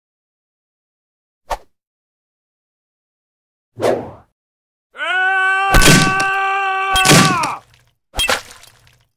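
Cartoon sound effects: a short click, then a thunk as a pitchfork sticks into a haystack about four seconds in. A steady held tone with many overtones follows for about two and a half seconds, with two heavy thuds over it, and another thud comes near the end.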